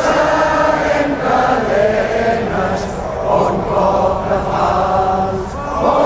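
Many voices singing together in unison, holding long notes that shift in pitch without a break.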